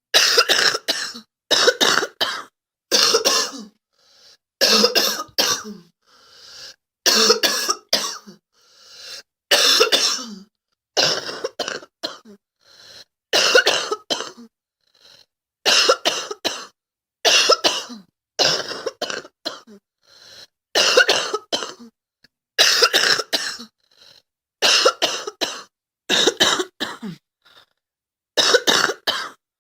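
A girl coughing over and over, in bouts of two or three quick, harsh coughs coming about every two seconds, with fainter breaths drawn in between some of the bouts.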